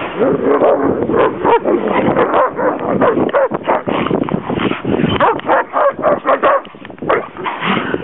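Deerhounds barking and yipping in play, a rapid run of short calls with a brief lull near the end.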